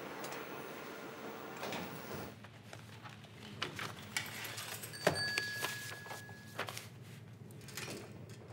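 Lift doors sliding shut over a steady hum, which ends about two seconds in. Then a quiet room with scattered small clicks, and a thin high tone held for about a second and a half around the middle.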